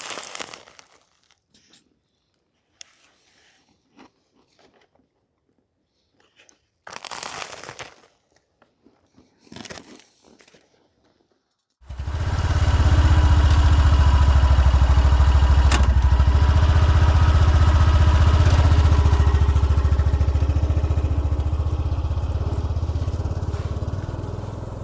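A few faint scattered clicks and crunches, then, about twelve seconds in, an engine comes in suddenly, running loud and steady with a deep low hum, and fades near the end.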